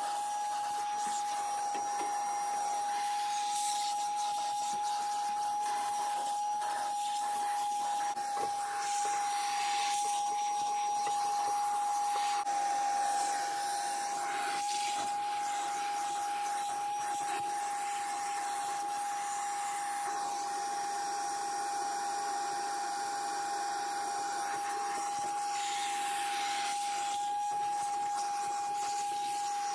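Vacuum cleaner running steadily, a constant whine over a hiss, its crevice nozzle sucking grit out of the felt-lined drawers of a metal tool box. Scattered rubs and clicks come from the nozzle scraping the felt and knocking the drawer.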